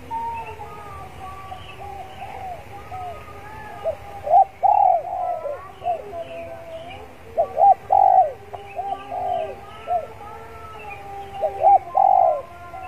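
Spotted dove cooing: three loud phrases of arched coos about four seconds apart, with a chorus of small birds chirping faintly behind.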